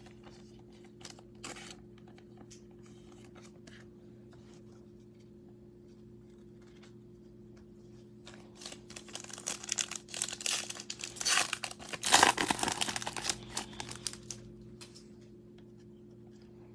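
The foil wrapper of a 2021 Panini Prizm baseball card pack is torn open and crinkled: dense crackling starts about halfway through and lasts about six seconds. Before that there are only a few light clicks of cards being handled over a steady low hum.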